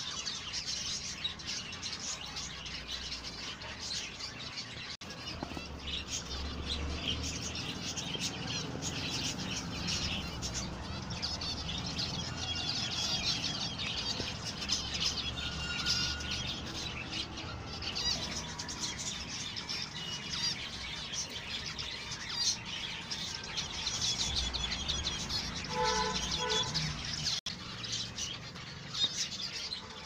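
A colony of many zebra finches calling at once: a dense, continuous chatter of short overlapping chirps with no pause.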